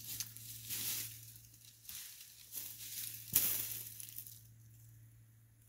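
Crackling and crunching of wood and brush, with a few sharp knocks, the strongest about three and a half seconds in.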